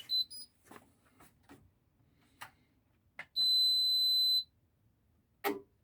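Indesit Innex washing machine's electronic control panel: a short run of high beeps at the start, a few faint clicks of buttons or the door, then one long steady beep of about a second.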